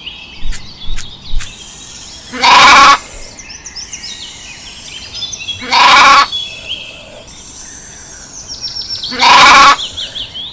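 An animal bleating: three loud calls of about half a second each, roughly three and a half seconds apart. Birds chirp faintly in the background.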